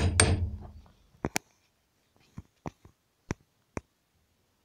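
Hammer striking a chisel set against the metal sleeve of a rubber engine-mount bushing on a Honda Dio scooter engine, the last blow landing right at the start. A handful of light, separate clicks follow.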